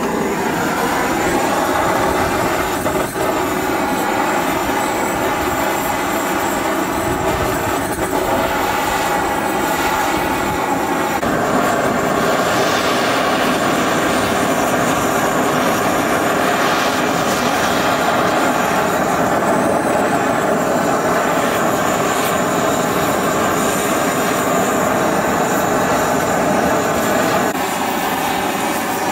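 Butane torch head on a gas canister burning with a steady rushing flame as it singes the skin of a slab of pork. The tone of the flame shifts about eleven seconds in and again near the end.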